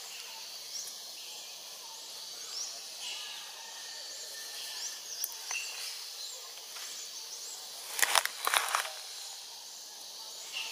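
Forest ambience with many small birds giving short, high, rising chirps throughout. About eight seconds in comes a brief burst of loud clicks and crackles.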